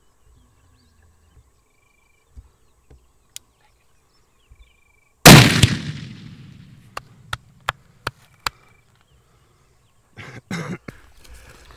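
A single shot from a double rifle about five seconds in: a sharp crack followed by a rumbling echo that dies away over about a second. Several short, sharp clicks follow.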